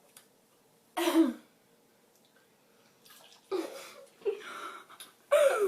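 A girl's loud, short burp about a second in after chugging a drink, followed by a run of quieter throaty sounds and a louder one near the end as she struggles with having drunk too much.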